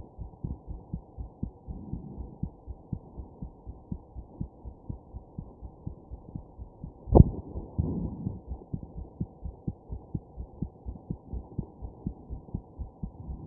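A heartbeat, recorded close and muffled, beating steadily in a regular rhythm of low thumps. One much louder sharp jolt about seven seconds in is a hiccup.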